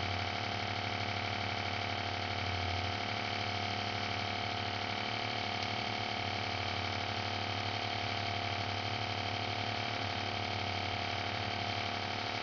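Small airbrush compressor running with a steady, even hum.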